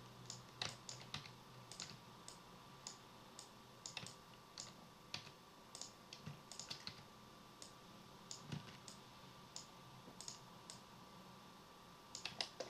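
Faint, irregular clicking of a computer keyboard and mouse: scattered single keystrokes and button presses while animation controls are set in 3D software, over a faint steady tone.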